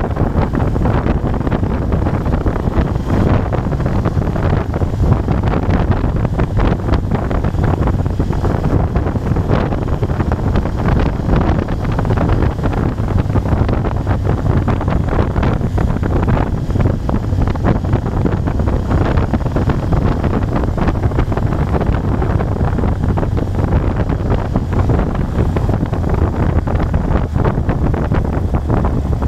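Moto Guzzi Bellagio's air-cooled V-twin running steadily at a cruise, heard from the rider's seat, with wind rushing over the microphone.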